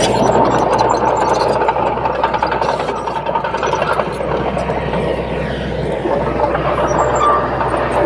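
Crawler bulldozer at work: a steady diesel engine drone under a dense metallic clatter, with a faint thin tone sliding slightly lower near the end.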